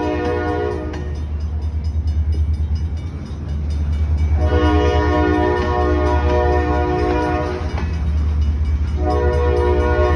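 Approaching freight train's locomotive horn sounding in long blasts: one ending about a second in, a long blast from about four and a half to seven and a half seconds, and another starting near the end, over a steady low rumble.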